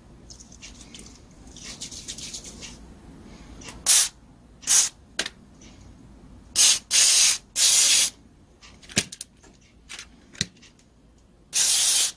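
Aerosol can of carburetor cleaner sprayed in short hissing bursts onto the dirty valve parts of a gas brush cutter's carburetor. There are about six bursts: three close together in the middle and a longer one at the end. A few light clicks fall in between.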